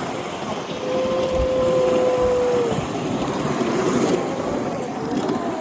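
Ride-on toy train running with a steady rumble. A steady high-pitched tone sounds from about a second in for nearly two seconds and dips in pitch as it stops.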